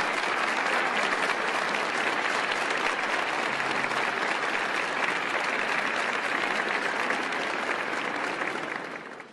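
A crowd clapping and applauding steadily, fading out at the end.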